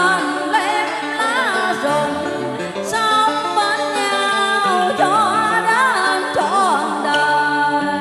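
A woman singing a Vietnamese duet song into a microphone, her held notes wavering in wide vibrato, over a karaoke backing track through a PA system.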